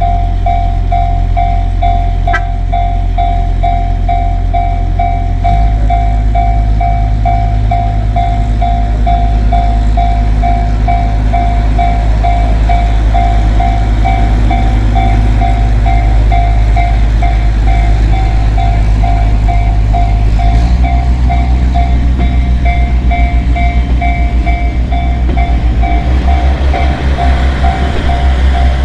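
A Japanese level-crossing alarm bell dings rapidly and steadily while a diesel railcar's engine drones loudly. The engine note steps up about five seconds in and shifts again about twenty seconds in, and the rhythmic clatter of wheels on the rails comes in near the end.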